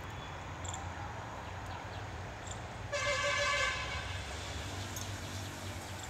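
A vehicle horn honks once, a single short note of just under a second about three seconds in, over a steady low background rumble.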